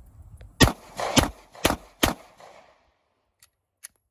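A 9mm semi-automatic pistol fired four times in quick succession, about half a second apart, each shot trailing off in a short echo. Two faint ticks follow near the end.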